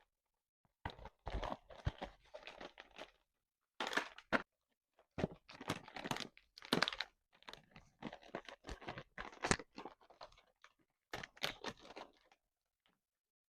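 Plastic candy wrappers crinkling and crackling as packaged treats are handled, in several bursts with short silences between.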